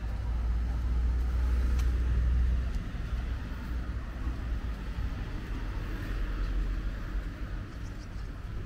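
Street traffic: a car going by on the road alongside, a low rumble that is loudest for the first two or three seconds and then eases to a steady background hum.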